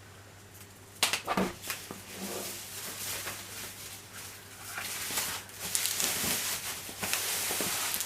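Handling of the unit and its packaging: a few sharp knocks about a second in, then a continuing rustle of packing material as things are moved about.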